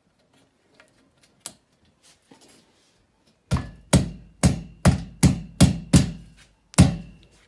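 About eight sharp knocks, a hand slapping a plastic foot cap onto the end of a square metal desk leg to seat it, each blow leaving a short metallic ring. A few faint clicks of handling come first.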